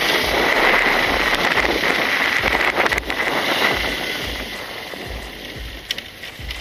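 Wind rushing over the microphone of a camera on a moving motorcycle, mixed with the rush of a bus passing close alongside. It is loudest for the first three seconds, then eases.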